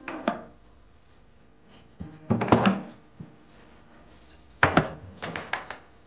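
Storage items being set down and shifted on a wooden desk: a knock right at the start, then two bunches of clunks and taps, one about two seconds in and one near the end.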